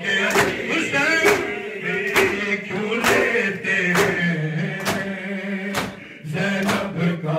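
Male voices chanting a noha (Urdu mourning lament) as a group. Under it, chest-beating matam by the mourners keeps a steady beat of about one hand slap a second, the slaps landing together.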